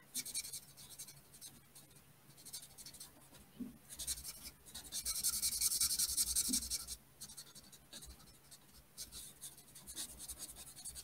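Stampin' Blends alcohol marker tip scratching back and forth across cardstock as a small area is coloured in, the strokes loudest about midway through.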